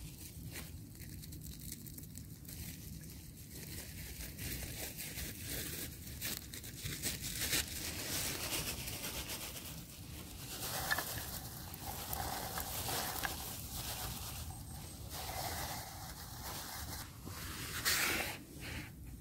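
Plastic bag crinkling and rustling as it is handled, with a few short, sharp tearing sounds.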